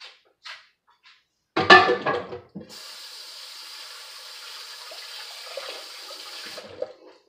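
A sharp clatter of dishware in the kitchen sink, then the kitchen faucet runs in a steady stream for about four seconds with hands working under it, and is shut off.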